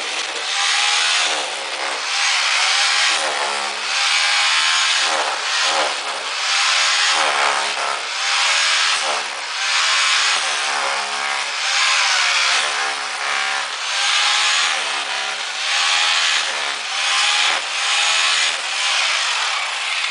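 Rhythmic back-and-forth scraping, a stroke about every second and a half, with a whining pitch that rises and falls within each stroke.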